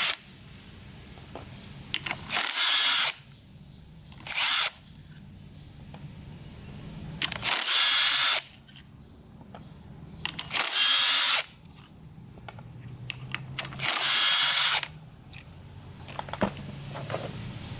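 A power drill spinning out the 10 mm clutch bolts on a 2004 Yamaha YZ250F in five short runs, each under a second and a few seconds apart, with small clinks of handling in between.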